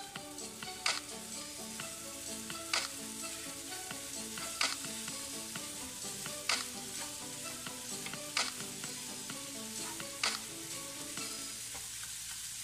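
Leftover rice, choy sum and spring onion sizzling in a wok while a spatula stirs and turns them. Quiet background music with a sharp beat about every two seconds plays underneath and fades out near the end.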